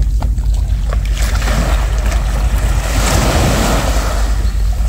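Small waves breaking and washing up the beach, one wash of surf swelling to a peak about three seconds in and then fading, over a steady rumble of wind buffeting the microphone.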